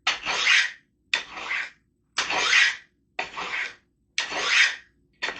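A knife blade drawn down the fine rods of a triangular V-rod sharpener, six even scraping strokes about one a second as the edge is honed.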